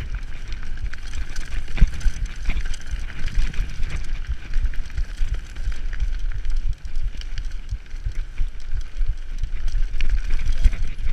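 Mountain bike riding fast down a rough dirt forest trail: tyres rolling over roots and stones, with frequent knocks and rattles from the bike and a heavy low rumble as it bumps along.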